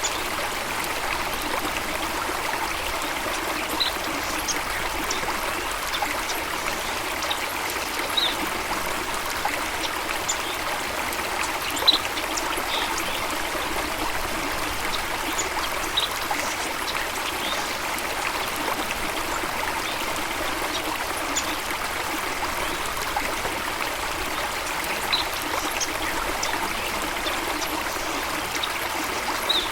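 A running stream, water trickling and splashing in a steady, even rush. A few brief high plinks stand out every few seconds, the sharpest about twelve seconds in.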